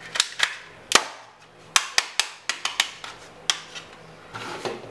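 A run of sharp plastic clicks and snaps, about ten at irregular spacing, as a black plastic toy pistol is handled and its parts worked. The loudest click comes about a second in.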